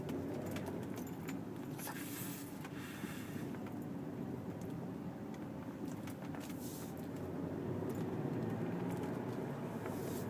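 Car running through town, heard as a steady low engine and road rumble, with a few light clicks and two brief hissy swells.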